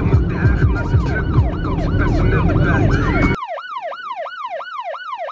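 Police car siren on a fast yelp, about two and a half rising-and-falling sweeps a second, heard over the low rumble of road noise inside a moving car. About three seconds in, the road noise cuts off abruptly and the siren carries on alone.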